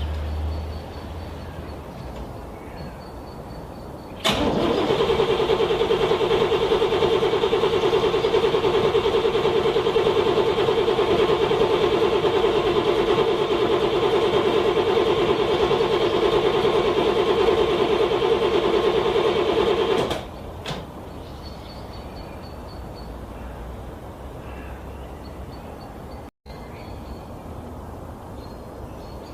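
A car's starter motor cranking a cold engine in one long, even stretch of about sixteen seconds that does not catch and stops abruptly. The engine is struggling to start in freezing weather.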